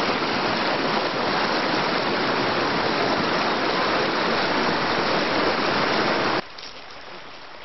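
Rushing whitewater of river rapids, a loud steady rush of water. It cuts off suddenly a little over six seconds in, leaving a much quieter background.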